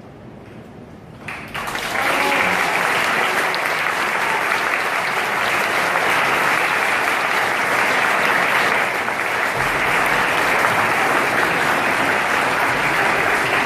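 Concert audience breaking into applause about a second in, at the end of a sung performance, then clapping steadily and loudly.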